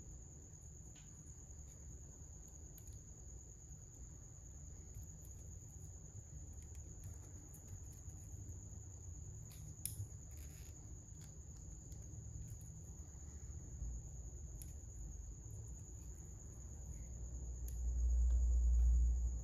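Small plastic building pieces handled and pressed together, with a few faint clicks, over a steady high-pitched whine; a low rumble of handling swells near the end.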